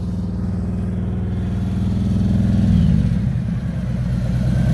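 Harley-Davidson V-twin engine running through Vance & Hines Slasher slip-on mufflers with the catalytic converter removed, idling steadily; it gets a little louder about two and a half seconds in.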